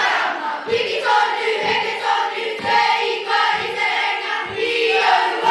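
A school kapa haka group of children singing together in unison, with a low thump about once a second keeping the beat.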